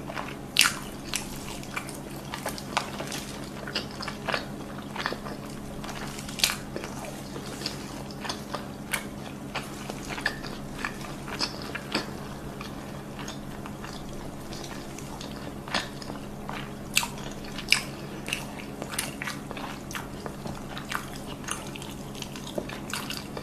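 Close-miked eating sounds: irregular wet smacks and clicks of a mouth chewing and biting food, over a steady low hum.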